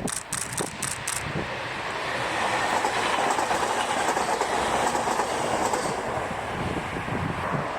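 JR East E721-series electric train, two two-car sets coupled, running past on the line: wheel and rail noise that builds from about two seconds in and then holds, with a quick run of sharp clicks in the first second.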